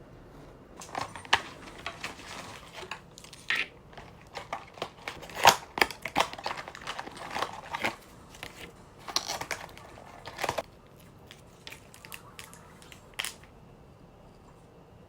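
Crinkling, tearing and rustling of packaging being handled and opened, in irregular sharp bursts that thin out near the end.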